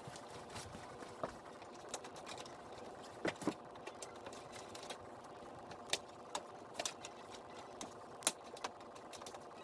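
Scattered sharp clicks and taps of a hand tool on a plastic cowl cover, as its screws and plastic clip are worked loose, over a steady background hum.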